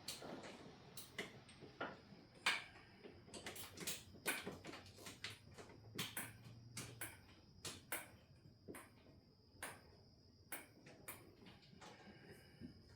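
Hand tools clicking and tapping on metal in a car's engine bay, a string of irregular sharp clicks about one or two a second, as hard-to-reach wiring-harness fasteners are worked loose.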